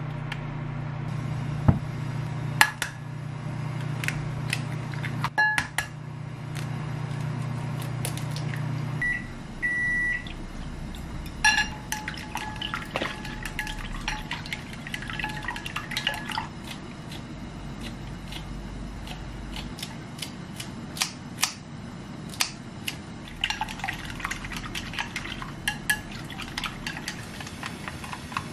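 Chopsticks beating eggs in a glass bowl, clinking sharply against the glass in quick runs. A short electronic beep sounds just before, and a steady low hum stops about nine seconds in.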